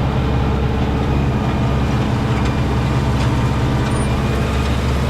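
A heavy vehicle engine running steadily at a constant speed.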